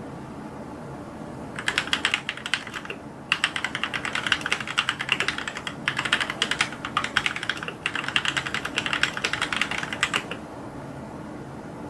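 Fast typing on a computer keyboard: three runs of many quick keystrokes. The typing starts about a second and a half in and stops near the end, over a steady faint hiss.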